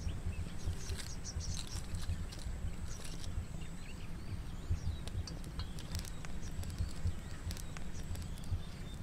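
Small wood campfire under a kettle, crackling with many short irregular pops, over a constant low rumble. A thin steady high whine runs alongside, with a few faint chirps about a second in.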